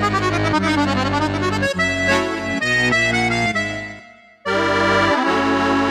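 Bugari EVO chromatic button accordion playing a quick melody over bass chords. About four seconds in the playing stops briefly, then starts again with repeated chords in a changed tone.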